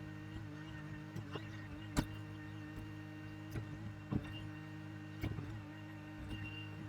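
Bobcat E42 mini excavator's diesel engine running steadily under hydraulic work while digging, with several sharp knocks, the loudest about two seconds in and others about four and five seconds in.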